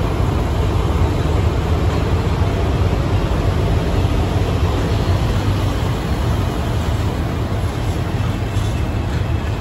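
Three coupled Dv12 diesel-hydraulic locomotives approaching with a freight train, their engines giving a steady deep rumble. Near the end, faint wheel clicks over the rail joints begin.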